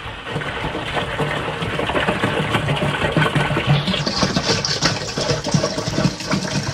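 Fruit punch pouring from an upturned plastic bottle into a plastic drink dispenser, glugging unevenly as air gets into the bottle. About four seconds in, the pour turns hissier and more splashy.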